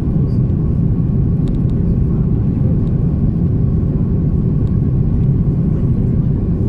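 Steady low rumble of a passenger airliner heard inside the cabin: engine and airflow noise.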